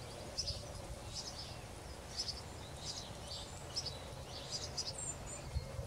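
Small garden birds chirping: short, high chirps about twice a second, with a quick falling double note near the end, over a low steady rumble of outdoor background noise.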